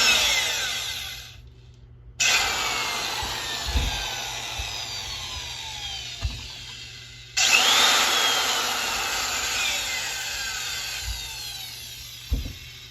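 A large power drill boring a hole into a nylon part, run in three goes: a short one, then two long ones starting about two and seven seconds in. Each starts sharply and fades away, with a falling whine. A few low thumps come in between.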